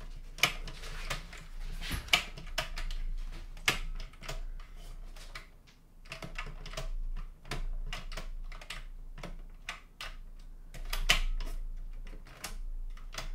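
Irregular sharp clicks and light knocks of plastic and metal parts being handled inside an opened Sony CMT-CP33MD mini hi-fi, with a few louder clicks scattered through.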